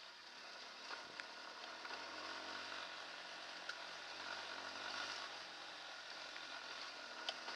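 Hartford VR150's 150cc single-cylinder air-cooled engine running at low speed on a rough, rocky dirt track, under a steady hiss, with a few sharp clicks as the bike jolts over the stones.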